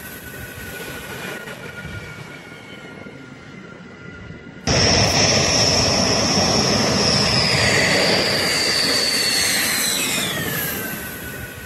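Dassault Rafale fighter's twin Snecma M88 turbofan engines on landing: a steady jet whine over rushing noise. About five seconds in the sound jumps abruptly louder to a higher whine, which slowly drops in pitch and falls away near the end.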